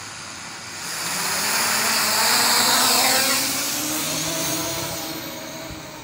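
Hubsan H501S quadcopter's brushless motors and propellers spinning up for take-off. A loud buzzing whir rises about a second in, peaks, then drops in pitch and fades as the drone climbs away.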